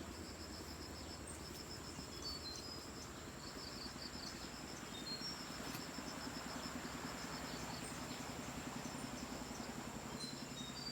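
Night insect chorus: crickets chirping in a fast, pulsed high trill over a constant high whine, with short high chirps here and there. From about four seconds in, a low, fast pulsing joins and grows slightly louder.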